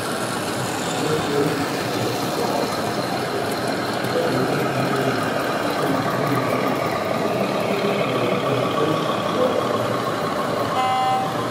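O gauge tinplate model trains running on three-rail track, a steady metallic rattle of wheels and coaches over the rails. A short pitched toot sounds near the end.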